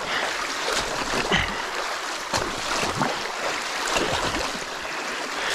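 Creek water rushing through a freshly opened breach in a beaver dam, a steady rushing noise with a few short knocks or splashes in it.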